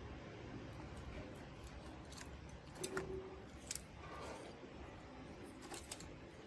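Scattered light clicks and taps of small parts and tools being handled, a few seconds apart, over a faint low hum.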